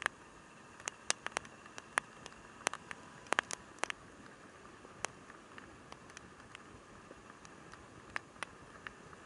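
Irregular sharp ticks and clicks over a faint steady hiss, thickest in the first four seconds and sparser after.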